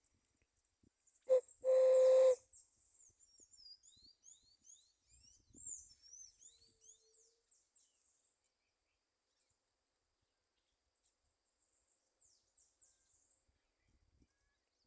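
A dove calls about two seconds in: a short note, then a longer steady coo. Small birds follow with many quick, high chirps, then again more faintly near the end.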